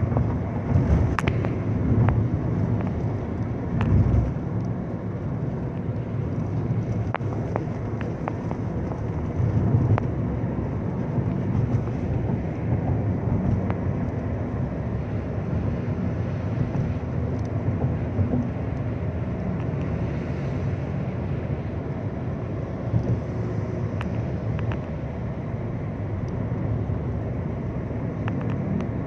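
Steady road and engine noise of a moving taxi heard from inside the cabin: a continuous low rumble of tyres and engine, with a few brief faint ticks.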